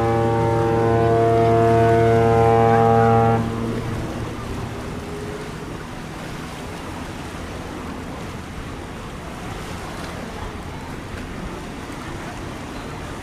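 A ship's horn holds one long, steady blast that cuts off about three and a half seconds in, leaving a steady wash of sea and wind noise.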